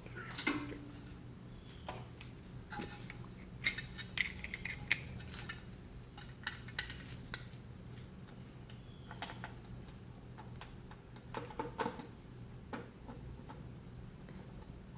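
Scattered light metallic clicks and clatters from handling the water heater's access panel and parts while putting it back together, in two busier bursts, one about four seconds in and one near twelve seconds.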